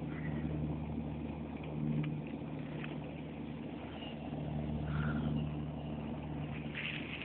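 A low, steady motor hum that swells and eases twice, with a few faint clicks.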